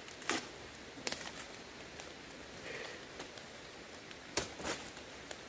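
Plant stems and twigs being snapped and pulled by hand in undergrowth: a few sharp cracks, the loudest two of them close together near the end, with leaves rustling between them.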